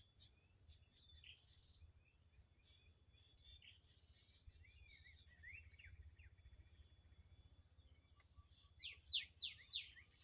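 Several wild birds calling and chirping: short high whistled notes and chirps, with a quick run of four or five falling notes near the end. A faint low rumble sits underneath.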